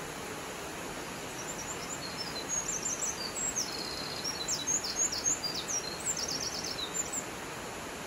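Steady rush of a waterfall. From about a second and a half in to near the end, a small songbird sings a quick, varied run of high chirps and trills over it.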